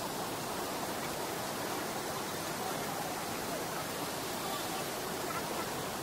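Steady rushing of a fast mountain stream and waterfall over rocks.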